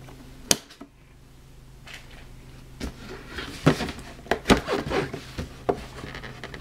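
Cardboard box for a vinyl figure being handled for opening: a sharp click about half a second in, then from about three seconds in a run of knocks, taps and rustles of the cardboard and plastic packaging.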